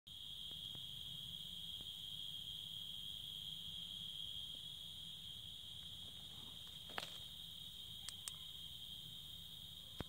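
Night insects trilling steadily in one continuous high-pitched chorus. A single sharp click comes about seven seconds in, followed by two fainter ticks a second later.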